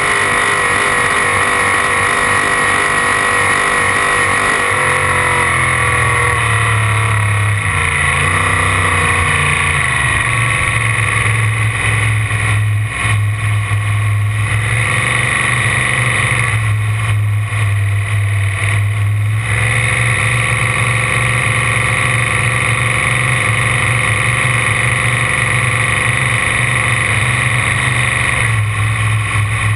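Ford 557 engine of a McKellar V-drive boat running loudly under way, its pitch shifting several times as the throttle changes.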